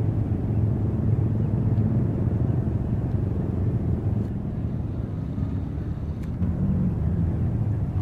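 Steady low rumble of an idling vehicle engine.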